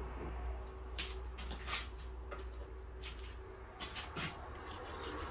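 Isopropyl alcohol squirted from a sprayer onto a circuit board: about eight short hissing squirts in irregular succession, starting about a second in.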